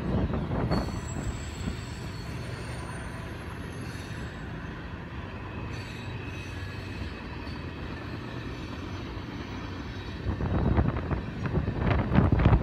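CSX mixed freight train rolling past, a steady rumble of wheels on rail with thin high-pitched wheel squeal at times. Louder rough noise swells near the end.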